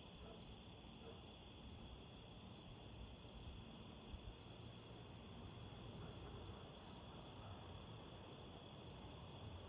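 Crickets chirping faintly at night, short high chirps recurring every second or two over a low rumble.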